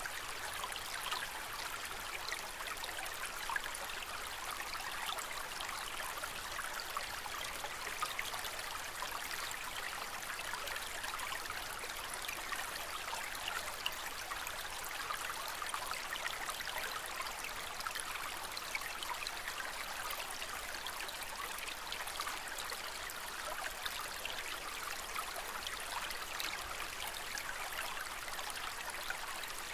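Aquarium water trickling and splashing steadily, with fine bubbly flickers throughout.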